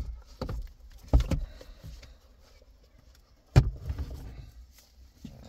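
Plastic dashboard trim and parts being handled around an opened instrument panel: a few sharp knocks and clicks in the first second or so, a louder knock about three and a half seconds in, and light clatter and rustling in between.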